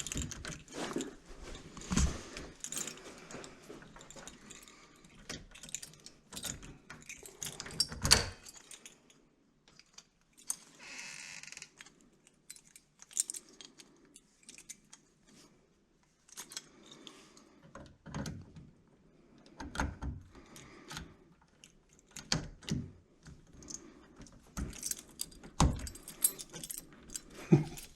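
Keys jangling and metal lock parts clicking and knocking while a door lock is taken apart for rekeying, with one sharper knock about 8 seconds in.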